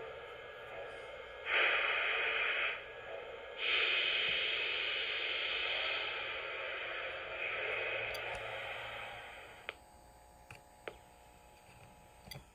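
O gauge model steam switcher's onboard sound system (ERR RailSounds) playing steam-release hiss through its small speaker, with the engine standing still. A short burst comes first, then a longer one that fades out about ten seconds in. A faint electrical hum lies underneath.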